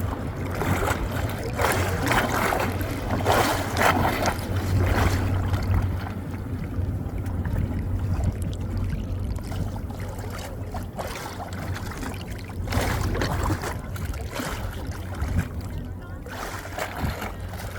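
Wind buffeting the microphone and water lapping against a small boat over a steady low rumble, louder and rougher in the first six seconds.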